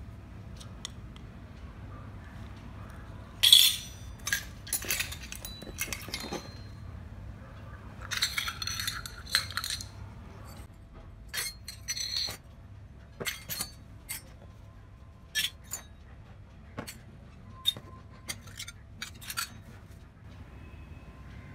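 Miniature stainless steel toy pots, bowls and lids clinking and clattering against each other as they are handled and set down. The clinks come irregularly, the loudest about three and a half seconds in, with a longer rattle of several knocks around eight to ten seconds.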